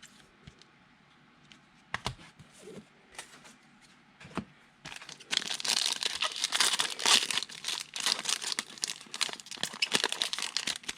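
Football trading-card pack wrappers being torn open and crinkled, starting about five seconds in, after a few faint clicks and handling taps.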